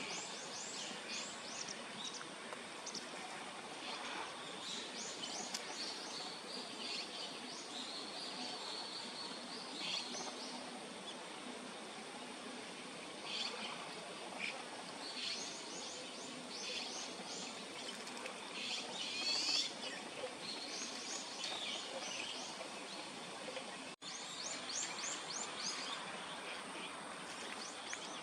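Small birds chirping in short, quickly repeated series of high notes over a steady background hiss. The sound cuts out for an instant about 24 seconds in.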